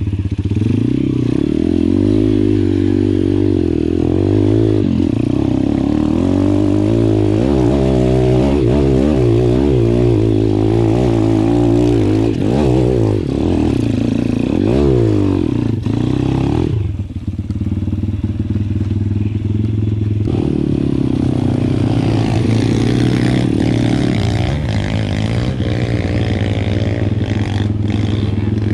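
Pit bike engine pulling away in first gear, revving up and down repeatedly under load. Its note drops back briefly about seventeen seconds in, then runs steadier.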